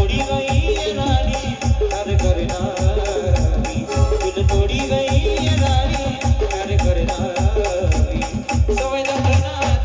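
Live band music of an Ahirani song: heavy drum beats under a wavering melody, with a fast, even rattle of cymbals or shakers on top.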